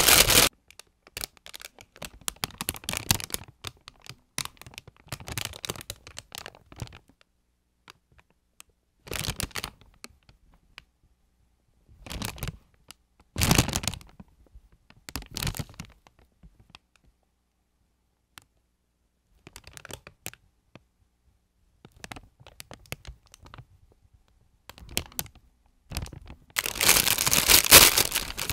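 Plastic snack bag crinkling in gloved hands in short bursts with pauses between them. It ends in a louder, longer stretch of crinkling and tearing as the bag is opened.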